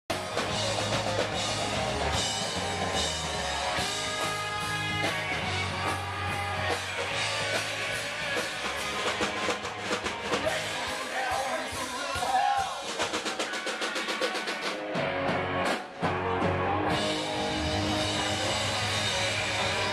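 Live rock band playing amplified electric guitars, bass and drum kit. About two-thirds through, the bass drops out for a few seconds, leaving quick drum beats, then the full band comes back in.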